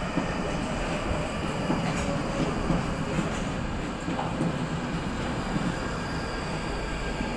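London Underground Northern line train (1995 tube stock) running past on the track below, a steady noise of its wheels on the rails.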